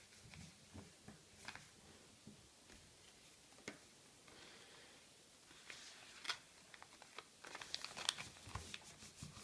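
A folded sheet of A4 office paper being handled and pulled open into an origami boat: faint rustling with sharp paper crackles, coming thicker and louder in the last few seconds.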